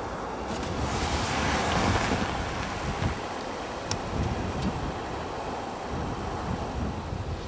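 VW Tiguan SUV driving up a snowy slope and passing close by, a low engine rumble under the noise of its tyres churning through snow, which swells briefly about a second in.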